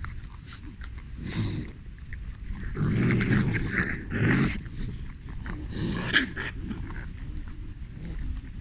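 Raccoons growling at each other in several short, harsh bouts, squabbling over hand-fed peanuts: aggression around food.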